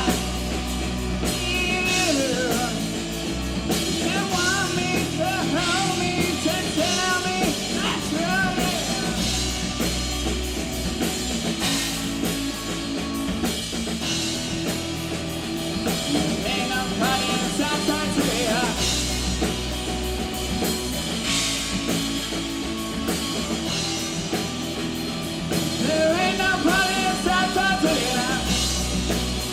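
A live rock band playing a song, with drum kit and bass guitar.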